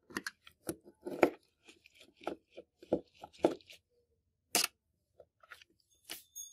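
A thin metal pick prying and scraping at the underside of a metal toy Volkswagen Beetle, with a run of short clicks, scrapes and small metal knocks as the body is worked loose from the chassis. The loudest knock comes about a second in.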